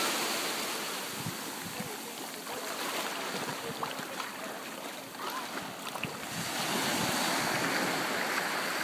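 Small surf breaking and washing up a sandy beach, a steady rushing wash that eases in the middle and swells again near the end.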